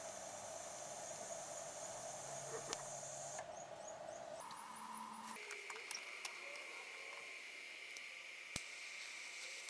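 TIG welding: a faint, steady electrical whine from the welder and arc that jumps to a different pitch a couple of times around the middle, with a single sharp click near the end.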